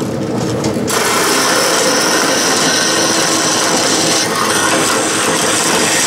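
Vertical metal-cutting bandsaw running, its blade starting to cut into a threaded rod about a second in and sawing steadily through it: a continuous rasping hiss over the machine's hum.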